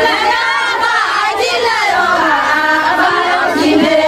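A group of voices singing together amid crowd chatter.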